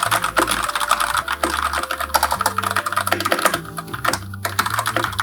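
Fast, continuous typing on a Koodo Arcadia TKL mechanical keyboard with brown switches: a dense run of key clacks, not very noisy, without the sharp click of blue switches.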